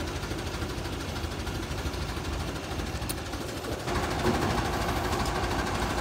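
Komatsu forklift's engine running steadily with a low pulsing note, growing louder about four seconds in.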